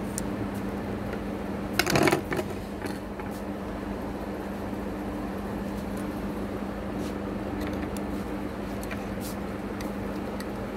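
Light clicks and taps of hand work on a Juki sewing machine's needle bar and hook during a needle-bar height adjustment, with a short louder clatter about two seconds in, over a steady low hum.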